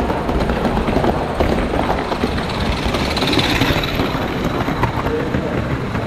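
Live steam model locomotive running on the layout's track, with a busy clicking of wheels and motion and a steam hiss that grows louder about halfway through.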